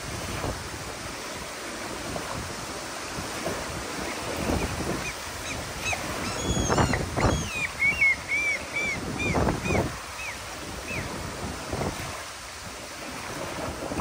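Small wind-driven waves lapping and splashing on a sandy lake shore, with wind buffeting the microphone. From about five seconds in, a bird calls a quick run of short high notes for several seconds.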